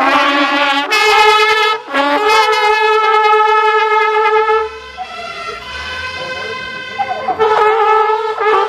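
Marching brass band of trombones and trumpets playing long held chords. The playing breaks off briefly about two seconds in and is quieter for a while past the middle, then comes back loud near the end.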